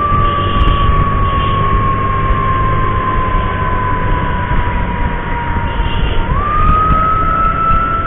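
Ambulance siren sounding one steady tone that slowly sinks in pitch, then jumps back up about six seconds in, over a heavy rumble of wind and motorcycle engine noise.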